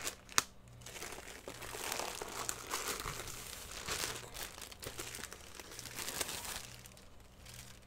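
Plastic packaging crinkling and rustling as a rolled diamond painting canvas in its plastic wrap is taken out and handled, with a sharp click about half a second in.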